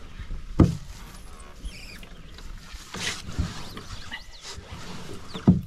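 Canoe being handled: four sharp knocks and thumps, the loudest about half a second in and another near the end, with faint high chirps in between.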